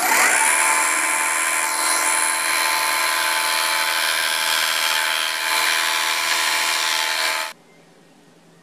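Bench belt sander running with a wooden piece pressed against the belt: a steady motor hum under a loud sanding hiss. It cuts off suddenly near the end.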